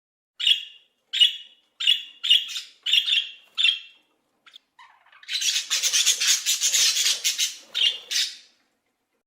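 An animal calling: six short, high calls about two-thirds of a second apart, then a few seconds of rapid, harsh chattering.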